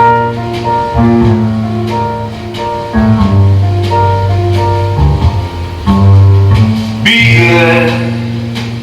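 A jazzy song with a steady walking bass and plucked or keyboard chords; a singer's voice comes in about seven seconds in.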